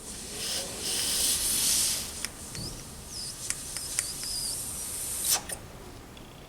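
Air hissing through a Gurtner moped carburettor's fuel inlet under mouth pressure, a leak test of the float needle valve, followed by a few small clicks, short high squeaks and one sharp click about five seconds in. Afterwards it is judged to seal well.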